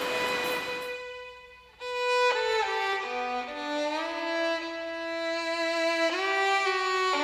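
Background music: a slow melody of held notes that slide from pitch to pitch. It drops to a brief lull about two seconds in, then a new phrase begins.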